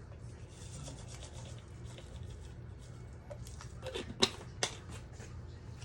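Kitchen stovetop sounds while soup cooks: a steady low hum and faint hiss, with a few sharp knocks about four seconds in.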